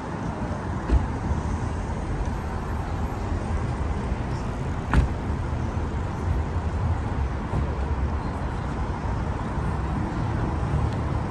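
City street traffic noise, a steady rumble of passing cars, with two short sharp knocks about a second in and about five seconds in.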